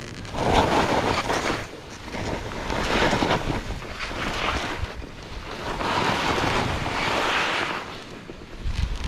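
Skis swooshing through soft snow in a run of linked turns, each turn a swell of hiss that rises and falls every second or two, with wind buffeting the microphone.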